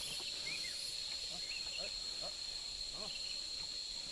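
Insects singing in a steady, high continuous drone, with faint short chirps over it.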